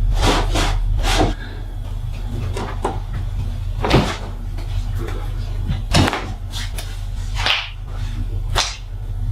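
Hands slapping and striking a body during a deep massage: a handful of sharp smacks spaced irregularly over several seconds, the loudest about four and six seconds in, over a steady low hum.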